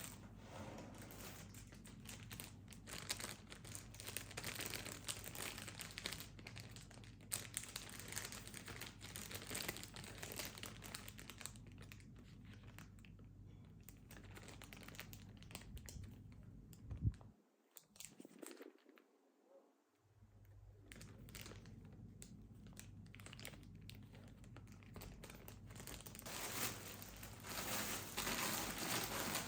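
Packaging crinkling and rustling as it is handled, in irregular crackly bursts, with a sharp click about 17 seconds in and a short near-silent gap just after.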